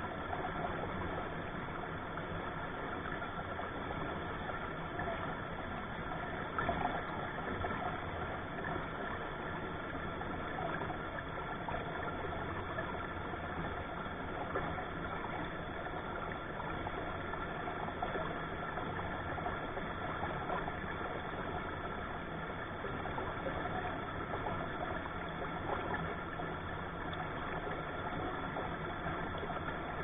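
Steady rush of a shallow rocky stream running over boulders.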